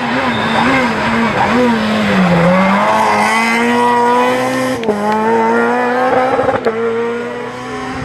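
Renault Clio Cup rally car at full stage pace: the engine note wavers and dips as it slows for a bend, then climbs hard as it accelerates away, shifting up twice with a short drop in pitch each time.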